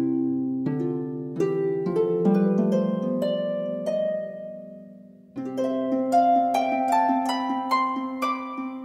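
Background music of plucked, harp-like notes climbing in runs over a held low chord. A new chord enters about five seconds in, after the notes fade.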